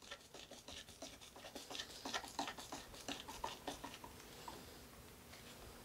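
Screws being driven by hand into wood with a screwdriver: faint, rapid small clicks and scraping that ease off after about four and a half seconds.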